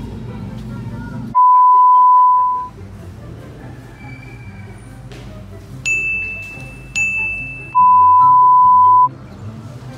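A steady 1 kHz test-tone beep of the kind played with TV colour bars sounds twice, each about a second long, once near the start and again near the end. Between them come two bright dings about a second apart, all over soft background music.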